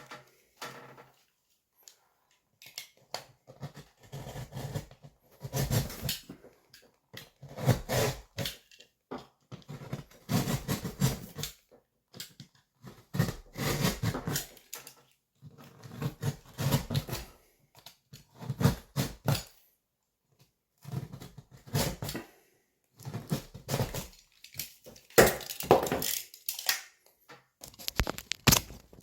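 Utility knife cutting into gypsum board in a series of scraping strokes, each about a second long with short pauses between, scoring out the opening for an electrical box.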